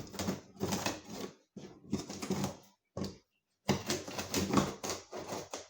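Packing tape being slit and torn open on a cardboard shipping box, in four bursts of scratchy, crackling tearing.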